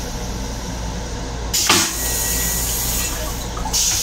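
Flush cycle of a Long Island Rail Road M7 railcar toilet over the steady rumble of the moving train. A short, loud whoosh dropping in pitch comes about one and a half seconds in, and a hiss of spray starts near the end.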